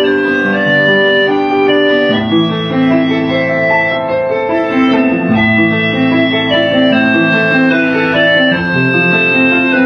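Keyboard instrument playing a melody over held chords, with no break.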